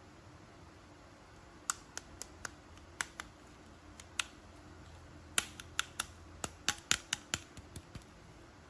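Sharp, irregular clicks and taps from unboxing an action figure and its plastic packaging. A few scattered clicks start about two seconds in, then they come quickly in a cluster near the end.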